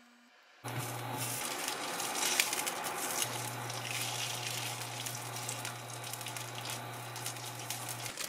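Scored hot dog sausages sizzling and crackling in oil in a ceramic frying pan, starting abruptly about half a second in. A steady low hum from the induction hob runs under it and drops out briefly early on.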